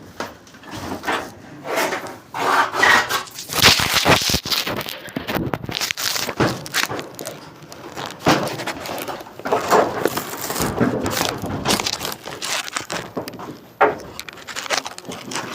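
Irregular scraping, crackling and knocking from handling hard materials, with several sharp knocks.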